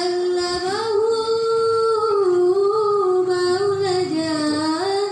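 A woman singing into a microphone, holding long notes that slide smoothly up and down between pitches with small ornamental turns.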